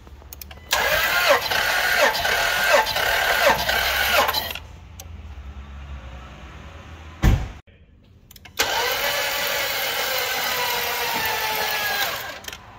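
6.4 Hemi V8 cranking on its starter for a compression test, in two bursts of about four seconds each. The first burst has a pulsing, falling note about twice a second. A single low thump falls between the bursts.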